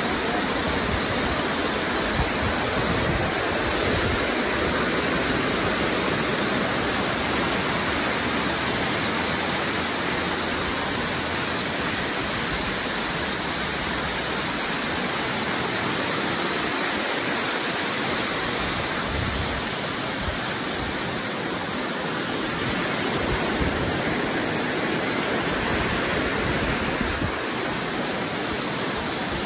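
Amicalola Falls, a waterfall, rushing steadily: a loud, even noise of falling water.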